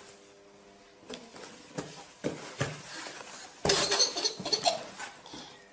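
Cardboard box being knocked and rustled, a run of scrapes and thumps, with a louder clatter about four seconds in as a cat jumps out of it.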